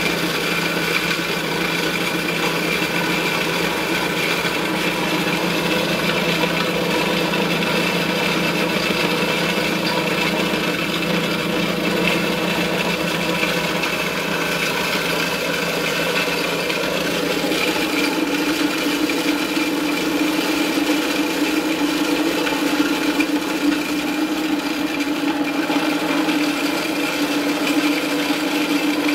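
Portable electric dry-mill grinder running steadily, grinding dry cracked corn fed from its stainless steel hopper. The pitch of its hum changes a little more than halfway through.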